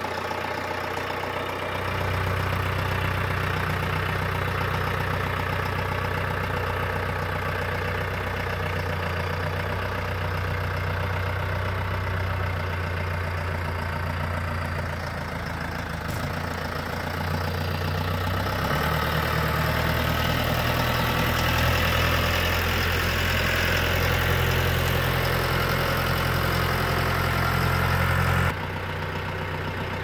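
Branson 7845C tractor's diesel engine running steadily with its loader holding a boom sprayer, the engine note stepping up about two seconds in and shifting again about two-thirds of the way through. It drops off abruptly near the end.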